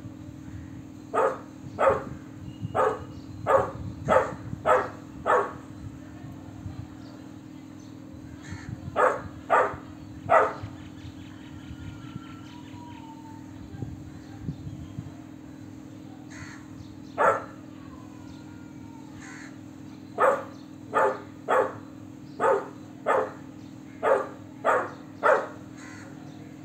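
Golden retriever puppy barking, a full bark that sounds like an adult dog's: a run of seven short barks, a pause, three more, a single bark, then a run of eight.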